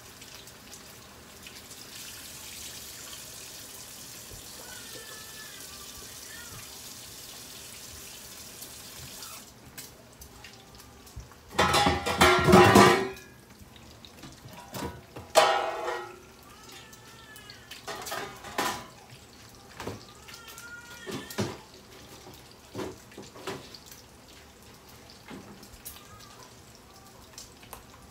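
Kitchen tap running steadily, cutting off about nine seconds in, followed by loud clattering of pots and dishes, with the biggest clanks a few seconds later and scattered lighter knocks and clinks after.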